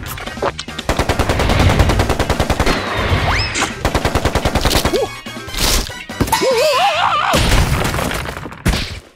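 Cartoon sound effects: a fast machine-gun-like rattle of knocks, about ten a second, broken by a few louder hits. Between about 6 and 7 s comes a wobbling, warbling cartoon creature cry.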